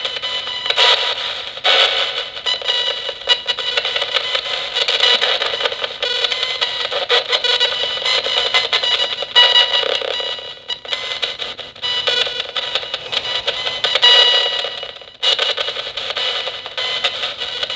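Nanocom Coffin Edition spirit box sweeping through radio stations: a thin, tinny, choppy stream of static and chopped station fragments with steady tones, broken up every fraction of a second. It drops out briefly about three seconds before the end.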